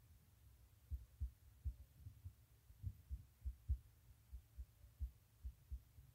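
Faint, dull low thumps, irregular, about two or three a second, with no other sound above them.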